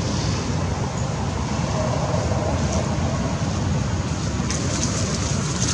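Steady low rumbling noise, with a few faint crackles near the end.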